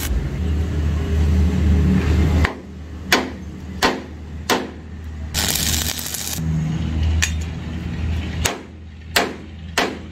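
Several sharp metal knocks and clinks of steel parts striking each other, starting about three seconds in, over a steady low machine hum that is loudest in the first couple of seconds.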